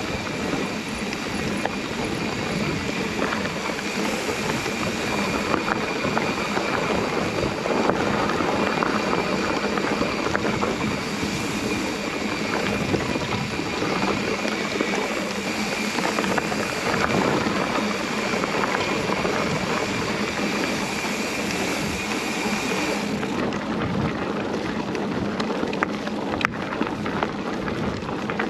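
Mountain bike rolling along a gravel trail: a steady rush of tyre noise and wind on the microphone, with occasional small knocks and rattles from the bike over bumps. Near the end the high hiss eases a little.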